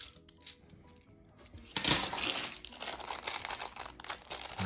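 A few faint coin clinks, then from about two seconds in a clear plastic bag of £2 coins crinkling as it is picked up and opened, the coins shifting inside. Faint music sounds underneath at the start.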